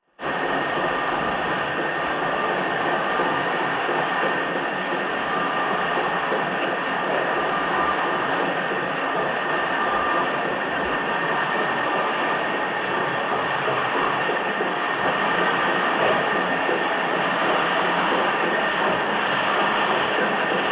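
Lathe running during a turning cut: a steady, noisy mechanical whir with a thin, high-pitched whine held above it.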